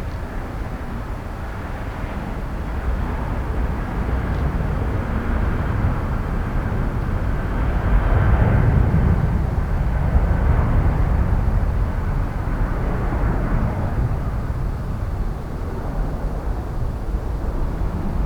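Jet airliner's engines passing, a rushing noise with a faint whine that swells to its loudest about eight or nine seconds in, then slowly fades.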